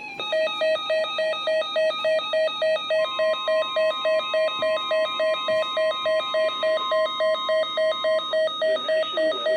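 Weather-radio alert tones: electronic beeping pulsed about three times a second, with a steady NOAA Weather Radio warning alarm tone joining about three seconds in and cutting off about eight seconds in, heralding a new warning.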